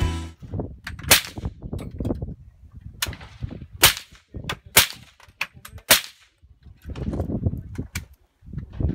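Suppressed AR-15-style rifles fired single shots at an irregular pace, sharp cracks each followed by a short ring.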